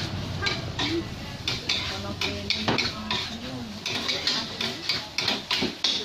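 A metal spatula clanking and scraping against a wok in quick, irregular strokes as fried rice with noodles (nasi goreng mawut) is stir-fried.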